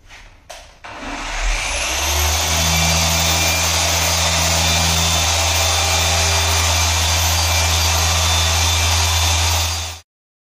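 Electric paint polisher with a yellow foam finishing pad, switched on after a couple of clicks: its motor whine rises as it spins up, then it runs steadily against the car's hood paint, polishing a compound test spot. The sound cuts off suddenly near the end.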